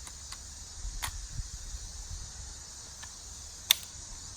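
Crickets chirring steadily, with a few sharp metallic clicks from the Winchester Model 42 .410 pump shotgun being handled as it is loaded; the loudest click comes near the end.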